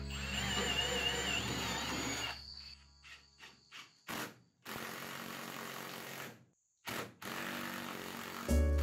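Background music fades out in the first couple of seconds, then a cordless Milwaukee power driver runs in short spurts and steadier stretches, driving screws through a caster wheel's mounting plate. Music comes back in near the end.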